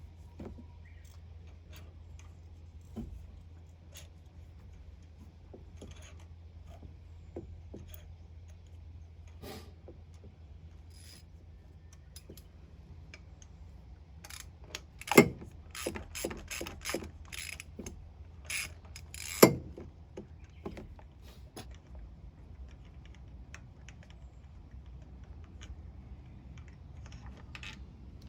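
Hand tools working on a small engine's spark plugs: scattered metallic clicks and clinks, with a louder run of ratchet-wrench clicks and knocks about halfway through, over a steady low hum.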